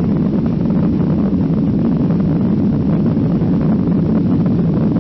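Jet airliner's engines heard from inside the passenger cabin as the plane climbs just after takeoff: a steady, loud, deep rush of engine and air noise that does not change.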